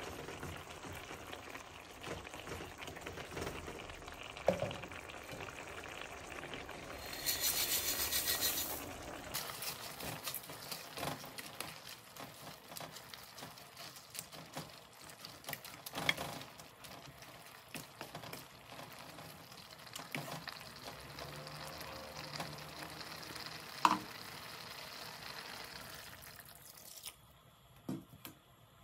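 Wooden spoon stirring a simmering tomato sauce of cucuzza squash greens (tenerumi) in an aluminium pan, with the sauce bubbling and sizzling and a few sharp knocks. About seven seconds in, broken dry spaghetti pours into the pan with a loud rattling rush for about two seconds.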